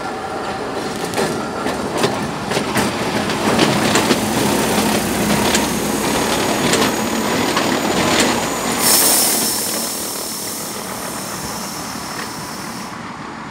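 Monte Generoso Railway rack railcar rolling slowly past close by, its wheels clicking over the rail joints and rack, with a thin high wheel squeal from about halfway. A brief hiss comes near nine seconds, and the sound fades as the car moves away near the end.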